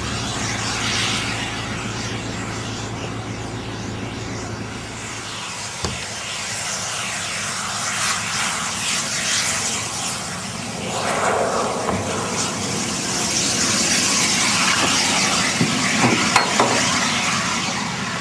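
Jet engines of a homebuilt go-kart running with a steady rushing noise. The noise grows louder and hissier about two-thirds of the way through as the cart comes nearer and passes.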